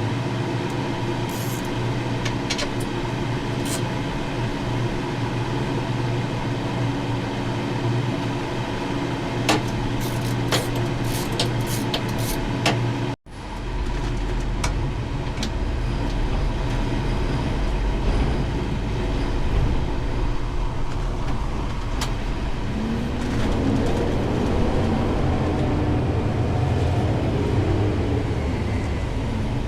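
Steady mechanical hum with a low drone, broken by a few sharp clicks and taps. A little under halfway through it cuts out abruptly, then comes back as a deeper, lower rumble.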